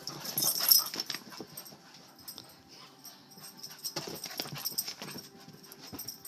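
Cocker spaniel making rough, noisy sounds as it romps right up to the microphone, loudest in two bursts: one just under a second in, another around four seconds in.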